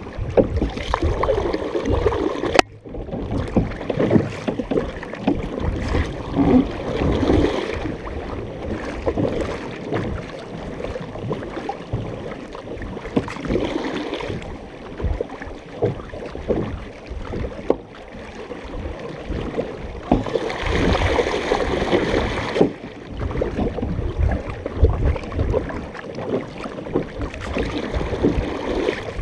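Water rushing and splashing along the hull of a large paddled canoe under way, with paddle strokes in the water and wind on the microphone. A sharp click about two and a half seconds in, and the water noise grows louder for a couple of seconds about two-thirds of the way through.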